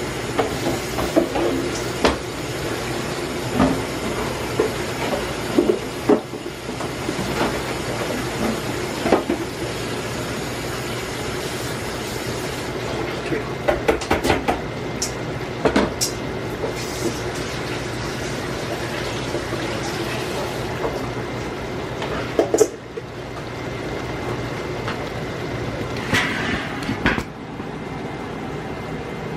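Kitchen pots, pans and utensils knocking and clattering in short bursts over a steady rushing noise.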